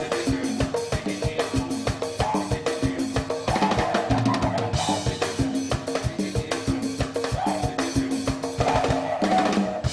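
Live tribal-trance music from a drums, percussion and didgeridoo trio: a fast, steady drum beat under a repeating pitched line.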